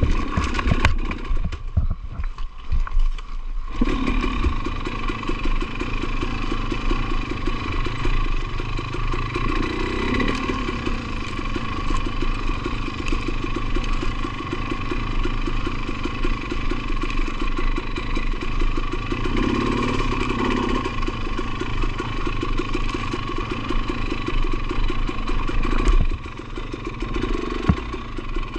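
2020 KTM 300 XC-W TPI's single-cylinder two-stroke engine running at low revs while trail riding, with some clatter from the bike. It drops off briefly about two seconds in, then picks up again and runs steadily.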